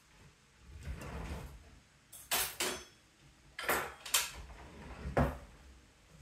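Plastic Lego pieces clicking and clattering as they are handled during building, about five sharp clicks.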